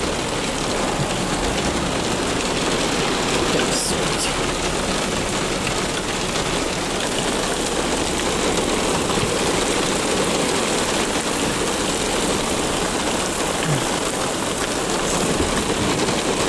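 Heavy thunderstorm rain pelting a car's roof and windows, a steady hiss heard from inside the cabin, with a short click about four seconds in.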